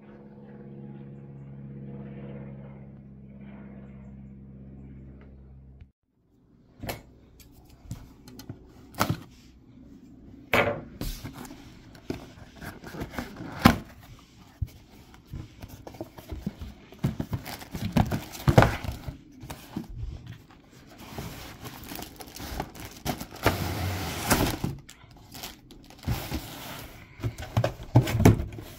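A steady droning tone for about six seconds that cuts off abruptly, then a cardboard model-kit box being handled and opened on a wooden table: irregular knocks, taps and scrapes of cardboard as the lid is worked off.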